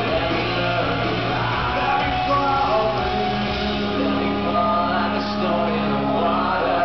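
Live rock band playing with a singer, heard from the audience: steady full-band sound with held chords, the bass moving to a new note about halfway through.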